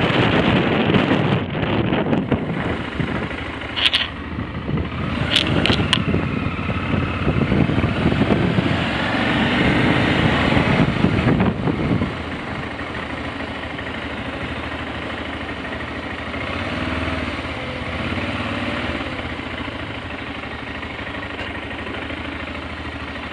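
BMW F650GS motorcycle ridden slowly over cobbled streets: engine and road rumble mixed with wind noise for about the first twelve seconds, then dropping suddenly to a quieter, steady engine hum.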